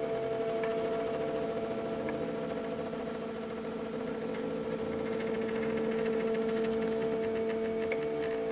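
Stepper motors of a home-built RAMPS-driven 3D printer whining steadily as they move the print head, with a few faint clicks.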